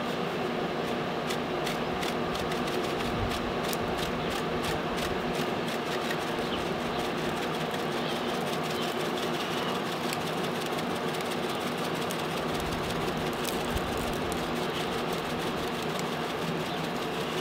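Steady mechanical hum of a running pellet smoker's fan and motor, with light rattling ticks from a spice shaker being shaken, most often in the first half.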